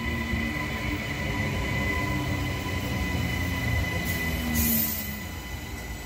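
Queensland Rail electric multiple-unit commuter train running slowly beside the platform: a steady low rumble with a steady high whine. A short burst of air hiss comes about four and a half seconds in.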